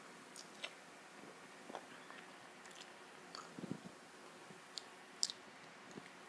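A person chewing fried chicken lollipop with mouth open to the microphone: faint chewing with scattered short wet clicks, the loudest about five seconds in.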